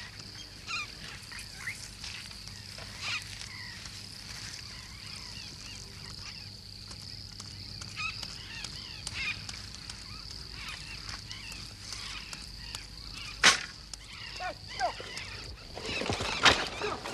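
Tropical forest ambience: a steady high insect drone, with birds calling in short chirps and whistles over it. There is a sharp crack about thirteen seconds in, and louder rustling and crackling near the end.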